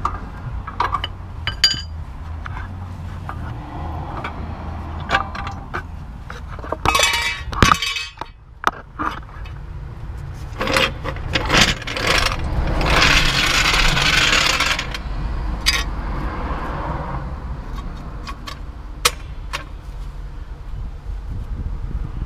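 Metal clinks, knocks and scrapes of a red trolley jack and tools under a car's front suspension as the jack is lowered from the lower suspension arm, with a longer rasping noise of about two seconds just past the middle.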